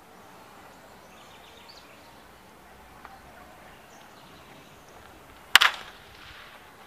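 A baseball bat hitting a pitched ball: one sharp, loud crack with a short ring, near the end, over faint outdoor ambience.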